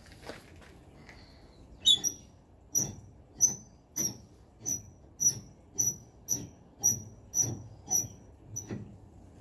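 Repeated metallic squeaking from the steel post of a pickup truck crane being worked by hand: about a dozen short squeaks, nearly two a second, starting about two seconds in, each with a dull knock.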